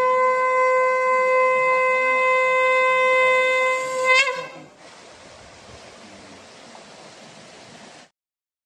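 Conch shell blown in one long, steady, loud note that ends about four seconds in with a brief upward break in pitch. After it, a faint steady hiss runs on until it cuts off near the end.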